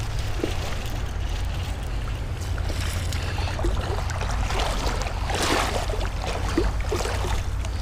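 Rushing creek water and a steady low wind rumble on the microphone, with a short burst of splashing about five and a half seconds in.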